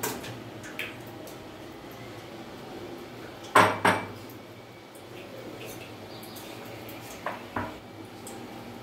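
Kitchen utensils and dishes clinking and knocking against each other, with two loud knocks about three and a half seconds in and two lighter ones near the end, over a low steady hum.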